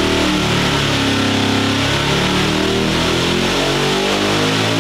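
Boosted drag-race engine running on an engine dyno. Its revs dip and climb back in the first two seconds or so, then hold fairly steady.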